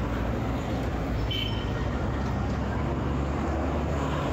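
City street traffic noise, with the low, steady rumble of a matatu minibus engine close by. A short high-pitched tone sounds about a second and a half in.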